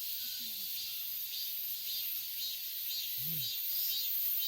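Cicadas buzzing, a steady high buzz that pulses about twice a second, with a brief low grunt from a person about three seconds in.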